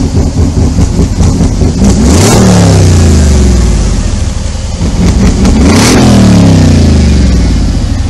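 Mercedes-AMG G63's 5.5-litre twin-turbo V8 running on its exhaust while parked: a lumpy idle, then two quick blips of the throttle, about two seconds and about six seconds in, each rising sharply and sinking back to idle over a couple of seconds.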